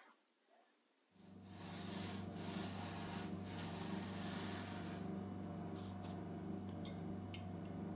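Steady rubbing and scraping on the wooden TV cabinet while its finish is being stripped, starting suddenly about a second in over a low steady hum.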